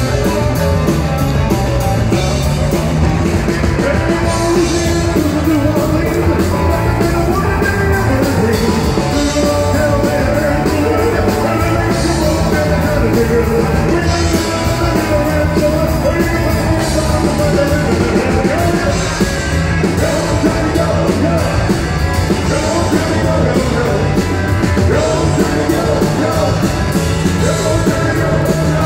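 Live rock band playing loud and without a break: electric guitar, bass and drum kit with a steady beat, and a male lead singer singing over them.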